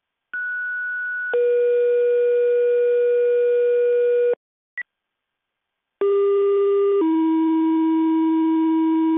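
Two-tone sequential fire-department paging tones over the dispatch radio, alerting the company's pagers before a dispatch. Twice in a row, a one-second tone steps down to a lower tone held about three seconds, the second pair pitched lower than the first, with a short high beep between them.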